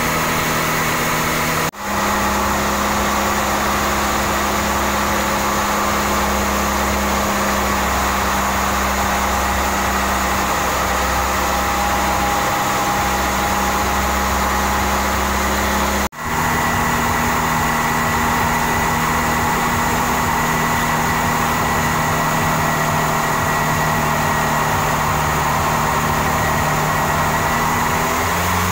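Mitsubishi PS100 four-cylinder diesel truck engine, fitted as a boat's inboard, running at a steady speed. The sound drops out briefly twice, about 2 and 16 seconds in.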